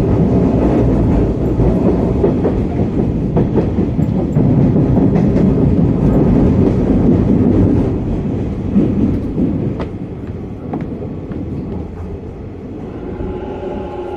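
Running noise inside a Hanshin 1000 series electric train's motor car: a loud rumble of wheels on rail with scattered clicks. It eases off after about eight seconds as the train slows, and a whine of several steady tones comes in near the end.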